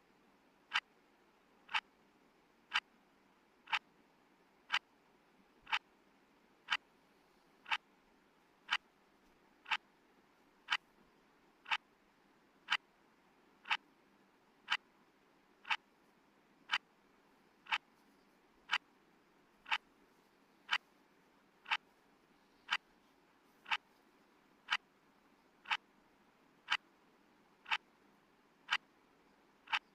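Countdown timer's tick sound: one short, sharp tick each second, evenly spaced, over a faint hiss.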